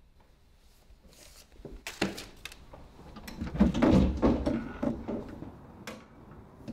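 Old wooden casement window being unlatched and opened: its brass latch turning and the sash coming free, a series of clicks and knocks, loudest about halfway through.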